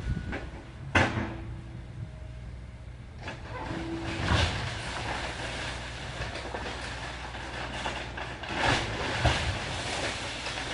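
Demolition machine engine running with a steady low drone while a house is torn apart: sharp cracks and crunching of breaking timber and falling debris, with the loudest crack about a second in and more near the end.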